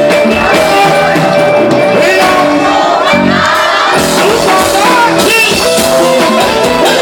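Thai ramwong dance music played by a live band, with a steady beat, singing and crowd voices.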